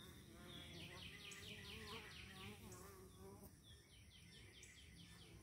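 Honeybees buzzing faintly at a hive entrance. A bird sings runs of quick, high, descending notes: one starting about half a second in and another around four seconds.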